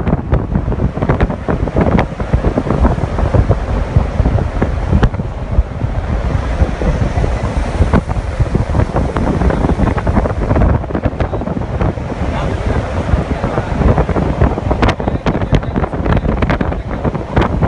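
Wind buffeting a phone microphone in a fast-moving open-top car, a loud continuous fluttering rush over the low rumble of the road.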